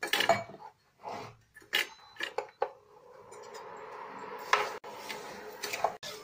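Steel utensils clinking and knocking against a kadhai and steel bowls while sugar and water are handled for syrup, several separate knocks. A steady noise comes in about three seconds in, under a few more knocks.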